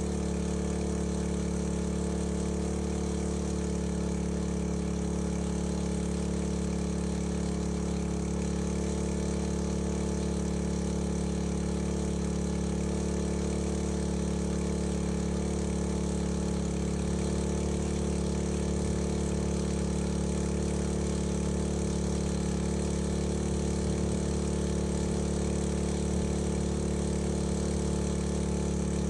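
An engine running steadily at one constant speed, without revving or changes.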